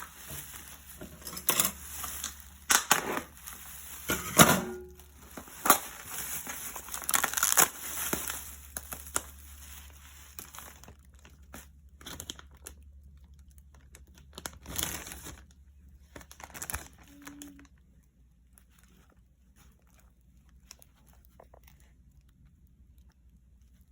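Plastic bag or food packaging being crinkled and rustled by hand in irregular bursts, busy for about the first half, then a few scattered crackles before it goes quiet.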